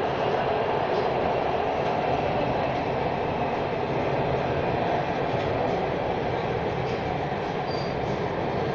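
Orange Line metro train running at speed along its elevated track, heard from inside the passenger car as a steady, even rolling noise.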